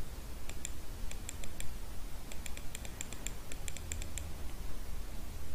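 Light clicking at a computer: a few scattered clicks, then a quick run of them from about two to four seconds in, over a faint low hum.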